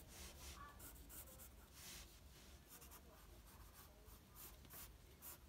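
Faint scratching of a graphite pencil on paper: a series of short, light sketching strokes.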